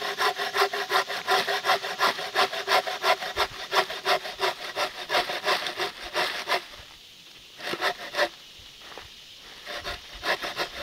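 Bow saw cutting crosswise into a log, fast even back-and-forth strokes. The strokes stop about two-thirds of the way through, with a few more strokes after the pause and near the end. The cut is being taken halfway down, across a natural split in the wood.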